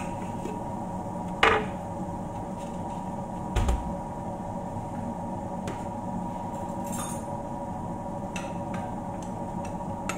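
Tuyo (dried salted fish) frying in a nonstick pan, a steady sizzle. Over it, a sharp clink of kitchenware comes about a second and a half in and a duller knock around three and a half seconds.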